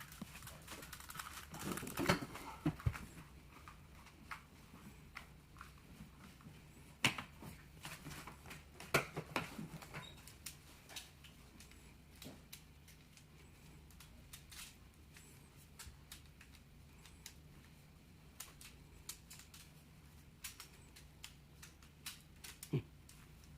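Plastic Rubik's cube layers being turned by hand: an irregular run of small clicks and clatters, with a few louder ones about 2, 7 and 9 seconds in.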